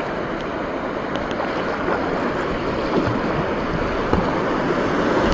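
Rushing river water in a small rapid around a kayak, with the paddle splashing at each stroke; the rush gets louder toward the end as the boat runs into rougher water.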